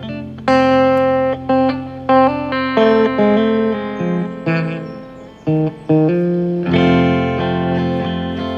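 Guitar music: single plucked notes picked one after another, each ringing on, over a held low note.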